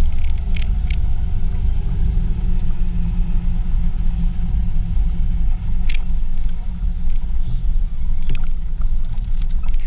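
Jeep Wrangler driving: a steady low rumble of engine and road noise, with a few short clicks over it.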